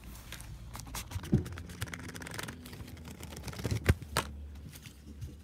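Handling noise from a plastic Blu-ray case and its cardboard box: a run of light clicks, taps and scrapes, with two sharper knocks, one about a second in and one near four seconds.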